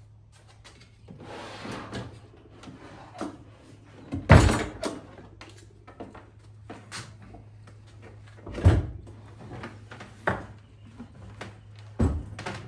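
Knocks and thumps of a WEN 6524 benchtop belt and spindle sander being lifted onto a workbench and set in place: a scraping shuffle near the start, three loud thuds about four, eight and a half and twelve seconds in, and smaller clunks between.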